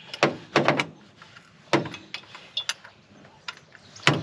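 Metal hand tools and parts clinking and knocking together in a series of sharp separate clanks. The loudest come about half a second in and again near the end, with lighter ticks between them.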